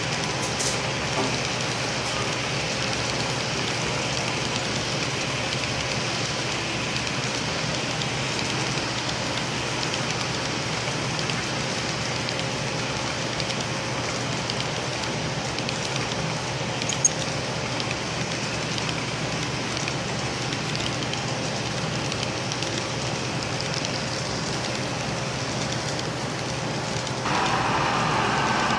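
HO scale double-stack container cars rolling past on the track: a steady rushing clatter of many small wheels on rail, with one sharp click about two-thirds of the way through. Near the end a louder sound with a wavering pitch takes over.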